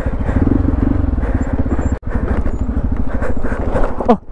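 Hero Xpulse 200 4V's single-cylinder engine running at low, steady revs with a pulsing beat, close to the microphone. The sound breaks off for an instant about halfway through.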